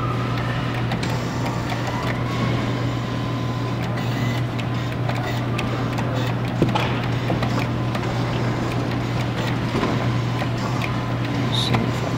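Claw machine in play: a steady electric hum with small mechanical clicks, and a sharper click about six and a half seconds in.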